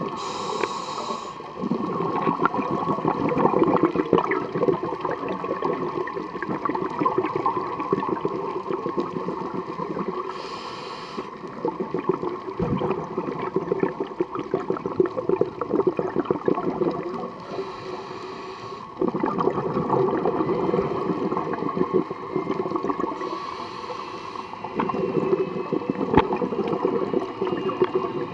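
Scuba regulator breathing underwater: four short hissing inhales, six to ten seconds apart, each followed by a long rush of bubbling exhaled air.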